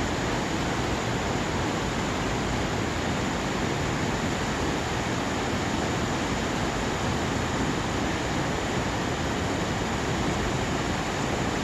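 Mountain valley stream flowing: a steady, even rush of water that does not change.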